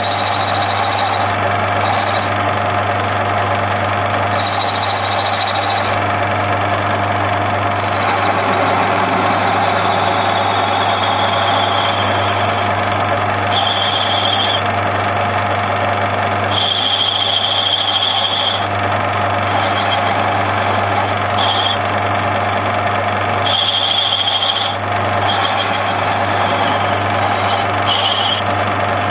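Metal lathe running steadily with a constant low motor hum while the cutter turns a ball on a radius-turning attachment. A high squeal from the cutting comes and goes in short stretches, several times.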